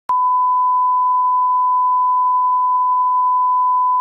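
Steady electronic reference test tone, the kind played with television colour bars: a single unwavering beep held at one pitch, starting with a slight click just after the beginning.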